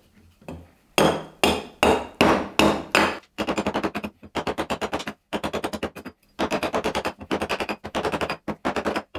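Hatchet blade chopping into a partially air-dried Atlantic cedar board, cleaning off the chops to flatten it. A few heavier strokes come about two or three a second, then from about three seconds in it switches to fast runs of lighter strikes in quick bursts with brief pauses. The wood is dry enough, around 16% moisture, to make the hewing hard work.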